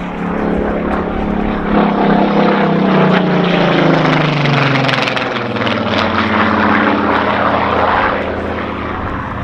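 Supermarine Spitfire PR XIX's Rolls-Royce Griffon V12 engine as the fighter makes a low pass: the engine note is loud and drops in pitch as it goes by over the first five seconds, then carries on at a steady lower pitch.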